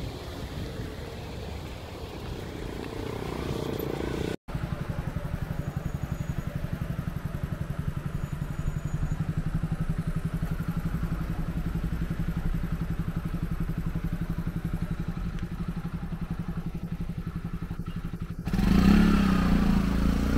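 A steady low mechanical hum, like an idling engine, under street noise. It drops out for an instant about four seconds in and gets louder near the end.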